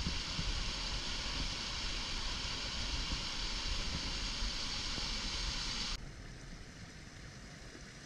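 Steady rush of stream water over rocks and small cascades, with wind fluttering on the microphone. About six seconds in it cuts suddenly to a quieter, duller rush of water.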